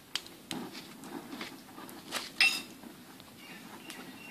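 Small steel spoon clinking against a metal bowl while chilli powder is tipped in: a few light knocks, then one sharp ringing clink about two and a half seconds in.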